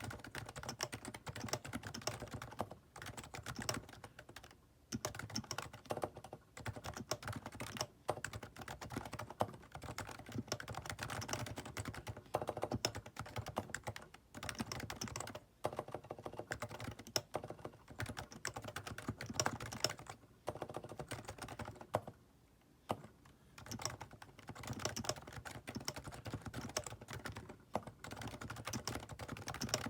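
Typing on a Topre Realforce R2 tenkeyless keyboard with silenced 30 g electrostatic capacitive switches: a steady run of quick keystrokes broken by a few brief pauses.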